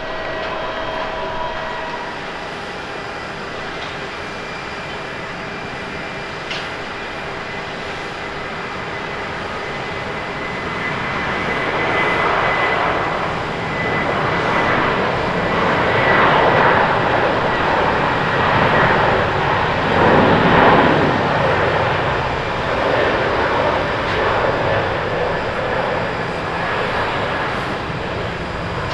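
Airbus A330-300 jet airliner on its takeoff roll at takeoff thrust: a steady roar that swells from about ten seconds in, is loudest around twenty seconds and stays loud as the plane lifts off. At the start, another jet's steady engine whine cuts off after about two seconds.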